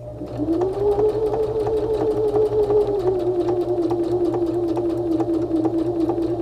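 Electric domestic sewing machine running a straight stitch through zipper tape and fabric. Its steady motor whine rises to speed in the first half-second, with evenly spaced clicks of the needle stroke.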